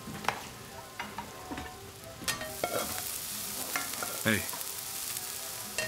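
Food sizzling in a pan in a restaurant kitchen, the hiss of the frying swelling up about two seconds in, with scattered light clicks and clatters.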